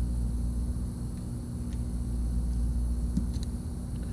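Steady blowing hum and hiss of a hot air rework station, with a few faint light clicks.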